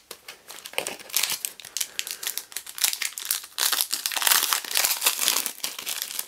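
Foil wrapper of a Donruss basketball trading-card pack being torn open and crinkled by hand. A dense run of sharp crackles starts about a second in and grows louder toward the middle and end as the wrapper is peeled apart.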